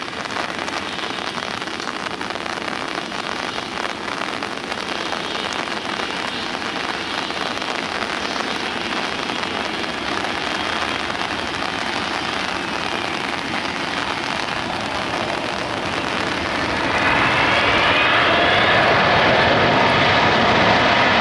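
Heavy rain falling steadily with a constant hiss. About seventeen seconds in, a jet airliner's engines come in over the rain, louder, with a whine rising in pitch.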